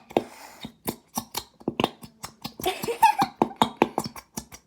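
Squeeze bottles of thick glitter glue forced hard, sputtering out in a quick, irregular run of short pops and splutters as air and glue escape the nozzles, with a couple of hissing squirts.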